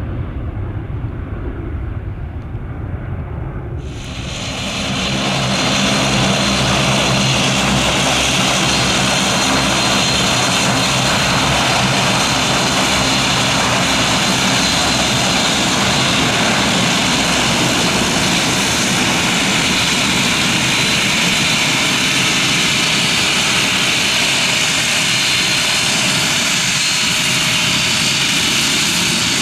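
Bombardier Dash 8 Q400 turboprop's two Pratt & Whitney Canada PW150A engines and propellers running at high power, a loud steady roar as it starts its takeoff roll. For the first few seconds before it, a low distant rumble of a Boeing 737 jet climbing away.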